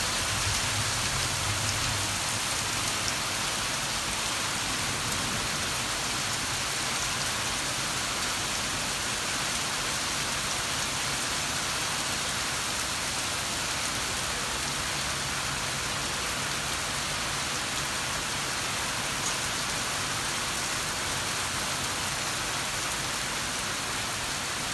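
Hail falling steadily: a dense, even hiss of small hailstones hitting the ground and the pool.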